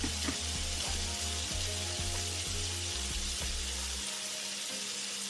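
Beef sirloin searing in a pot on high heat, sizzling steadily as it browns.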